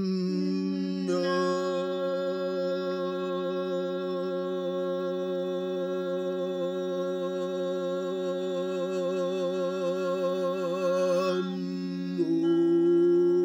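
Sustained chant-like humming drone from voices, several pitches held together for a long time, with a slow wavering in the upper tones. It starts with a quick upward slide into pitch, thins briefly a little before the end, then comes back slightly louder on a shifted pitch.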